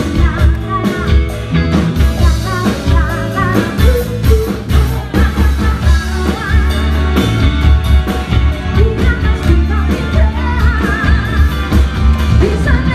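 An upbeat song with singing over a strong, steady bass beat.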